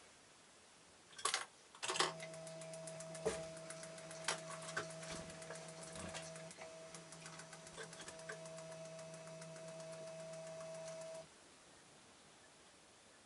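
Stepping motor of a homemade Arduino-controlled seed feeder running with a steady hum and many small clicks and rattles over it for about nine seconds, then stopping suddenly. A few sharp clicks come just before it starts.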